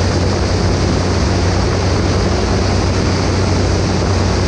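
Single-engine light aircraft in flight: the piston engine and propeller make a steady low drone under an even rush of airflow.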